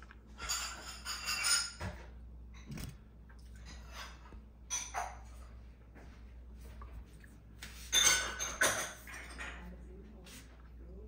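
Dishes and utensils clinking in three short bouts, over a steady low hum.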